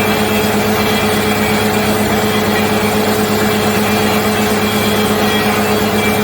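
Water well drilling rig running under power, a steady engine drone with a constant hum that does not change in pitch or loudness.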